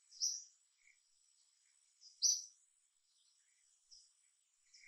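Short high chirps, with two loud ones about two seconds apart and fainter ones between, over a thin steady high-pitched insect hum.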